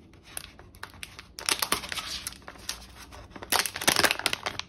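Plastic packaging crinkling and rustling as it is pulled open by hand. The noise is faint at first, thickens about a second and a half in, and is loudest near the end as a zip-lock bag is opened.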